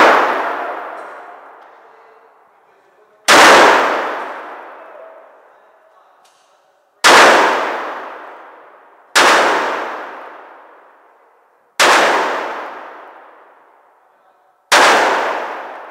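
Large-calibre revolver fired five times, slow single shots two to four seconds apart. Each shot is followed by a long echoing decay in an indoor range.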